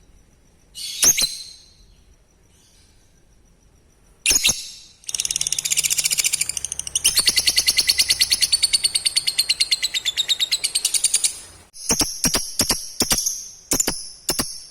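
Lovebird calling: two sharp high chirps, then a long, rapid chattering trill lasting about six seconds (the 'ngekek' song), followed by a string of separate sharp chirps.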